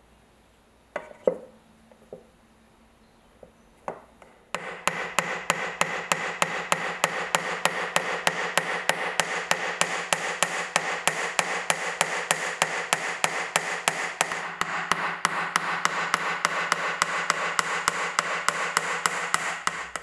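Hammer driving small nails into the wooden box of a manual coffee grinder: a few separate taps, then from about four and a half seconds a fast, even run of hammer strikes, about four a second.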